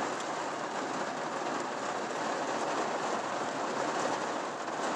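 Heavy rain falling on a truck's roof and windows, heard from inside the cab as a steady, dense hiss.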